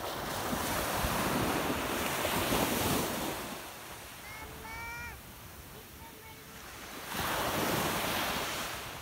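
Waves breaking and washing up a sandy beach, with two long surges, one in the first three seconds and another near the end, and wind on the microphone.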